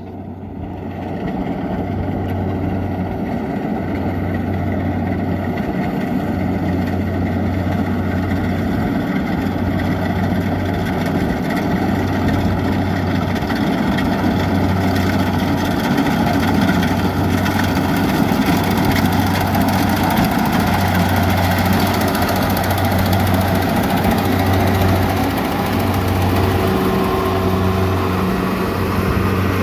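Kubota DC-70 rice combine harvester's diesel engine and threshing machinery running steadily while harvesting. A low hum swells and fades about every two seconds.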